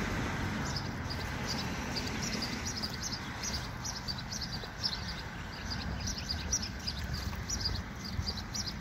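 Small birds chirping repeatedly in short high notes over a steady low outdoor rumble.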